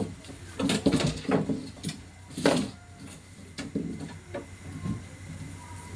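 Irregular knocks, taps and clatter of hands and tools working on a two-door refrigerator's body panels, loudest about a second in and again near the middle, over a steady low hum.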